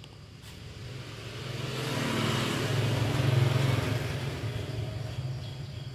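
A road vehicle passing by: engine and road noise that swells up, peaks about three seconds in, then fades away.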